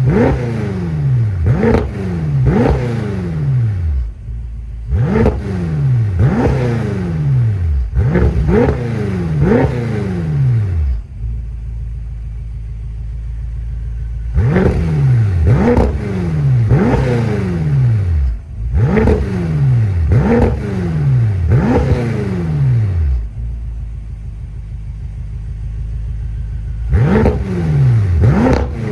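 BMW M5 F10's twin-turbo 4.4-litre V8 on its stock exhaust, revved in quick blips one after another, each rising sharply and falling back. Twice the blips stop for a few seconds of steady idle before they start again.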